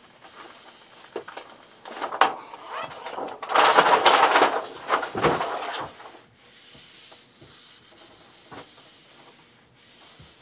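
Paper backing of a vinyl wrap rustling and crinkling as it is peeled up and handled, loudest about halfway through. Then a felt-edged squeegee rubs quietly over the vinyl, pressing it onto the board.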